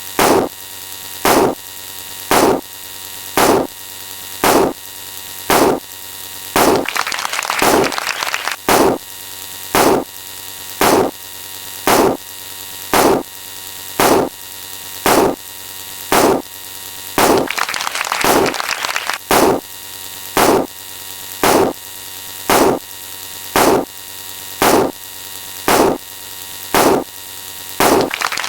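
A short sound effect repeats about once a second over a steady hum, with a longer, noisier swell about every ten seconds.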